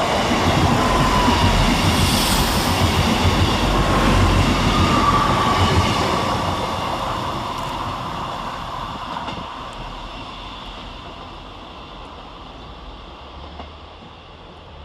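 Two coupled Class 158 diesel multiple units passing through at speed without stopping: loud engine and wheel-on-rail noise for the first six seconds, fading steadily as the train draws away.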